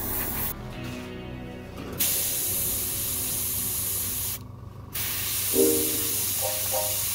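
Airbrush hissing as it sprays paint in bursts, stopping briefly about half a second in and again just after four seconds in.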